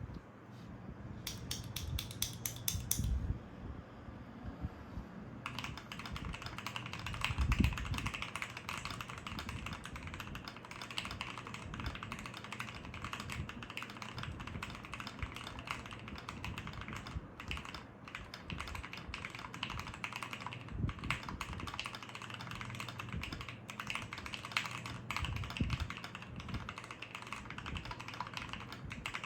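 Typing on a Keychron Q3 mechanical keyboard with stock, unlubed Gateron Pro Yellow linear switches in a foam-damped steel plate, under PBT keycaps. A few keystrokes, a short pause, then steady fast typing from about five seconds in, with one heavier thump a couple of seconds later.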